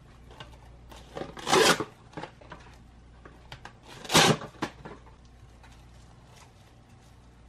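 Plastic cling wrap pulled from its box and torn off, then crackling as it is smoothed over a glass bowl. There are two loud bursts, about a second and a half and about four seconds in, with small crackles between and just after.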